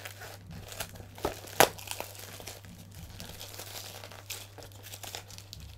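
Cardboard and paper packing being crinkled and torn by hand while a shipping box is pulled open: irregular crackling and rustling, with a sharp crack about a second and a half in.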